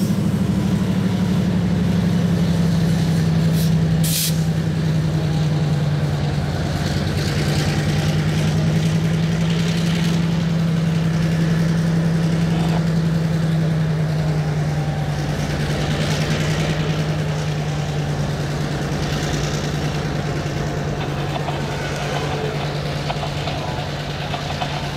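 Diesel switcher locomotive of the Indiana Harbor Belt hauling a freight train of covered hoppers and tank cars over a grade crossing. Its engine gives a steady low drone that fades a little near the end as it moves away, while the cars roll by; two short sharp clanks come about four seconds in.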